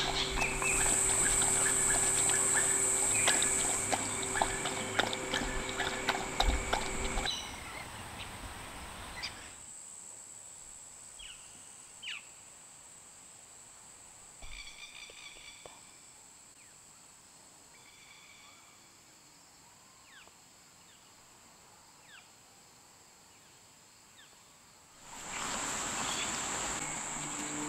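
A dog lapping water from a bowl, quick wet laps, over a steady high insect drone. After about seven seconds it fades to a quiet bush background with a few scattered bird chirps, and near the end the high insect drone comes back loud.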